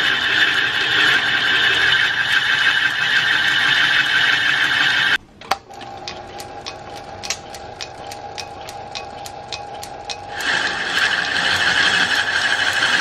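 Metal lathe turning a white oak blank, the tool bit cutting the spinning wood with a loud, steady hissing squeal. About five seconds in, the cutting noise stops suddenly, leaving the lathe running more quietly with a steady whine and a regular ticking, three or four ticks a second. The cutting noise returns near the end.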